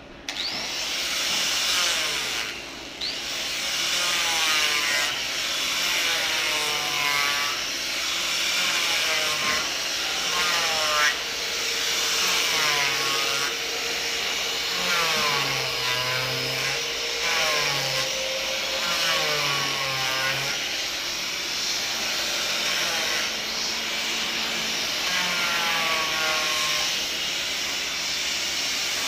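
Handheld electric disc sander running as it sands a carved wooden door panel. It spins up right at the start, then its whine sags and recovers again and again as the disc is pressed into the wood and worked over the carving.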